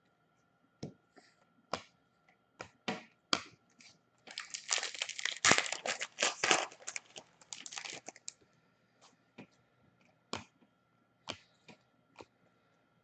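A few light clicks and taps, then a hockey card pack's wrapper torn open and crinkled for about four seconds, starting about four seconds in, followed by scattered light clicks as the cards are handled.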